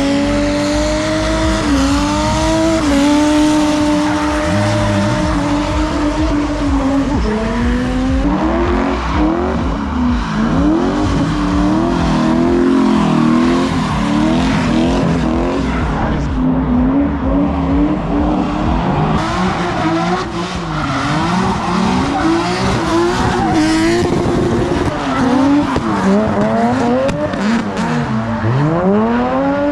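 Drift cars' engines revving up and down as they slide through a corner, with tyres squealing. Near the end one engine note dips sharply, then climbs again.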